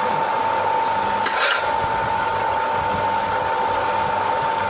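YES240E small electric water-well drilling rig running while drilling: its electric motor and gearbox give a steady hum and a constant whine as the drill rod turns into the ground. A brief scrape comes about a second and a half in.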